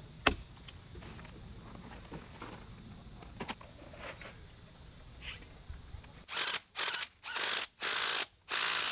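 Cordless power tool run in five short, loud bursts in quick succession near the end, against the gravel ground. A sharp click comes about a third of a second in.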